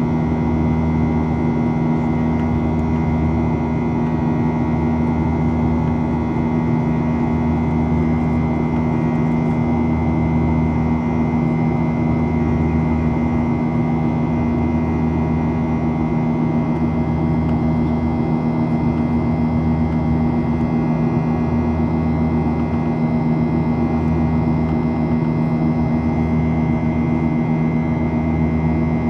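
Steady drone of a Boeing 737-800's CFM56-7B turbofan engines heard inside the passenger cabin, with a slow low throb that swells about every two seconds.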